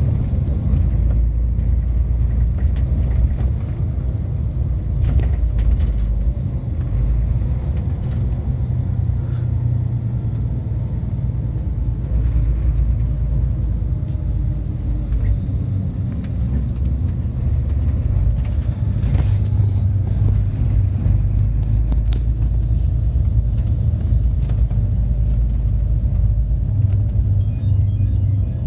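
Low, steady engine and road rumble heard from inside the cab of a heavy vehicle moving slowly, with a brief sharp clack about two-thirds of the way through.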